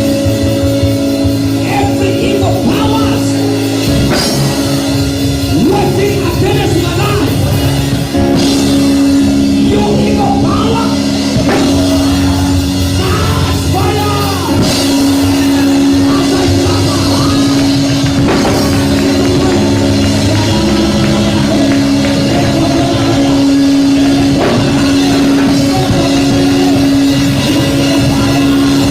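Loud band music with drums and singing voices over long held chords.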